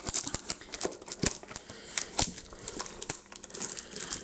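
Cellophane shrink wrap being peeled and torn off a cardboard trading-card box: irregular crinkling and crackling, with a few louder snaps of the plastic, the first about a second in.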